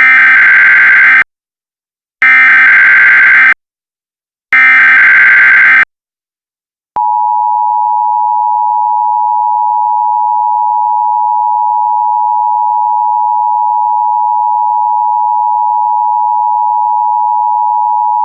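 Emergency Alert System SAME header: three bursts of digital data warble, each about a second long. About a second later the EAS two-tone attention signal begins, a steady harsh tone held from about seven seconds in, which announces a new alert message.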